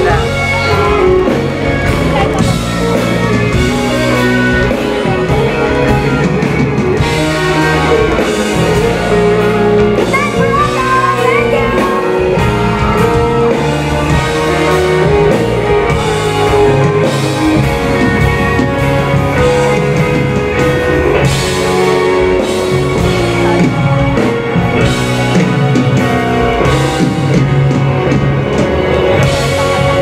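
Live pop-rock band playing loud and steady, with electric guitar, keyboards and drums, and a woman singing over it, heard from within the audience in a large hall.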